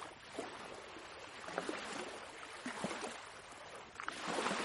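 Soft ocean waves lapping, with small splashes and trickles, and a wave swelling about four seconds in.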